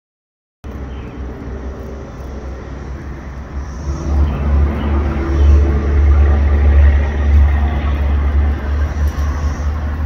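Outdoor ambience dominated by a loud low rumble. It starts abruptly just under a second in and grows louder from about four seconds in.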